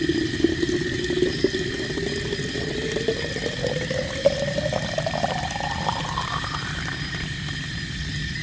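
Water from a garden hose pouring into a large unglazed clay olla buried in the soil. The pouring sound rises steadily in pitch as the pot fills toward the top.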